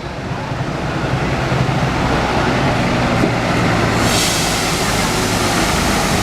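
Large bus engine running close by, growing louder as the bus draws near. A loud rushing hiss joins about four seconds in.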